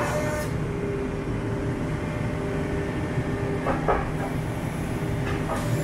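Excavator engine and hydraulics running under load with a steady whine while its demolition crusher bites into a concrete loading ramp, with crunches of breaking concrete about four seconds in and again near the end.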